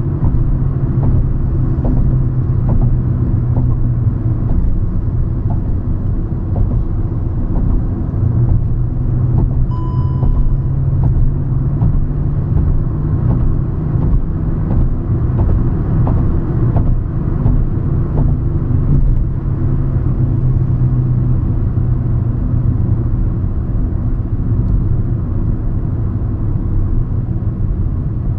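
Hyundai i20 Magna driving on the road: steady engine and tyre rumble. A short high beep sounds about ten seconds in.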